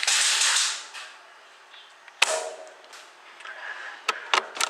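Airsoft bolt-action sniper rifle (M700 type) firing once with a single sharp crack a little over two seconds in. A burst of rushing noise fills the first second, and a few quick sharp clicks follow near the end.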